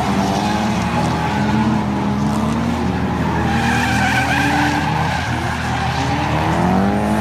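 Drift cars sliding sideways through a corner: engines revving up and down at high rpm, several at once, over the steady squeal of tyres skidding. A fresh rise in revs comes near the end.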